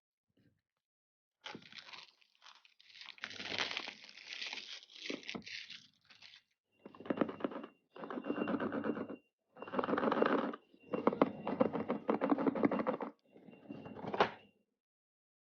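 Earbud retail packaging being torn open and handled: tearing and crinkling for a few seconds, then about five separate scraping, rubbing passages of cardboard and packaging.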